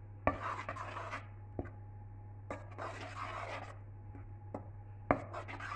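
Metal spoon stirring flour into a thick fruit-and-syrup mixture in a stainless steel pot: soft scraping and rubbing strokes in a few spells, with light clinks of the spoon against the pot.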